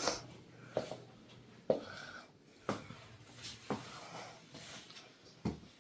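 A series of short knocks, about one a second, over faint background noise.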